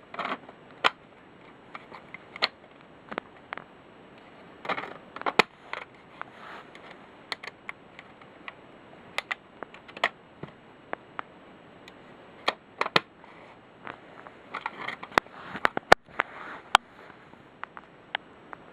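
Plastic smoke detectors being handled: irregular sharp clicks and knocks, with a few short bursts of rustling and scraping.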